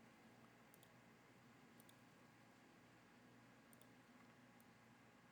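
Near silence with faint computer mouse clicks: four of them, the first three each a quick double click.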